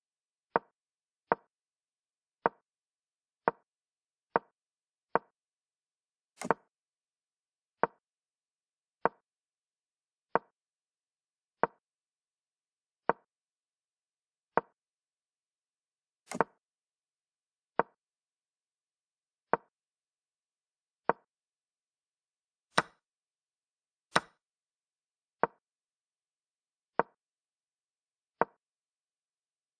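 Online chess board's move sound effects: a short wooden click as each move is played in a game replay, about one every one to two seconds. A few of the clicks, a quarter of the way in, midway and about three quarters in, are brighter and sharper than the rest.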